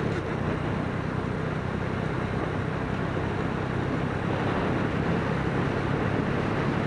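Small single-cylinder four-stroke motorcycle engine, a Suzuki Smash 115, running steadily at cruising speed, under heavy wind rush over the camera microphone.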